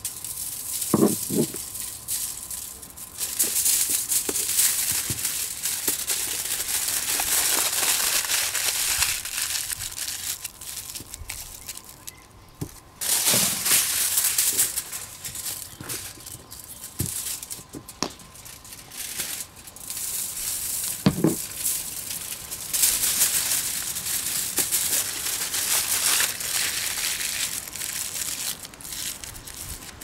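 Aluminium foil crinkling and rustling in long stretches as it is handled and wrapped around potatoes for baking, with a few soft knocks on the table in between.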